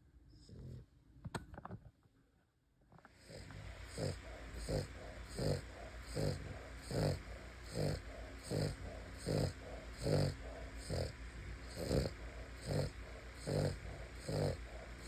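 A sleeping dog snoring in an even rhythm, a little more than one snore a second. It starts about three seconds in, after a quieter moment with a few faint clicks.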